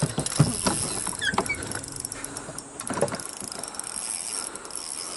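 Spinning reel and tackle working while a big black bass is played on light line: irregular clicks and knocks of the reel, with a few short high squeaks about a second in.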